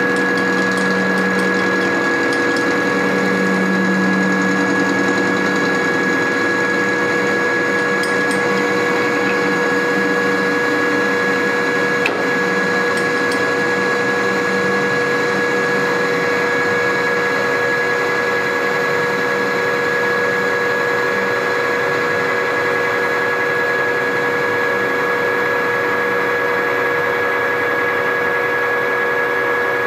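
Precision Matthews PM1440TL metal lathe running steadily, its motor and gearing giving a constant whine, while the table legs are drilled and tapped. A lower uneven hum sits under it for the first several seconds.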